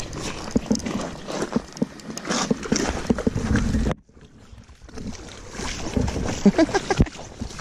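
Water splashing and rustling as a small hooked steelhead is drawn through shallow water to the bank, with knocks and clothing rubbing against the body-worn camera as the angler handles the centerpin rod and reel. The sound cuts out sharply about halfway through, then picks up again.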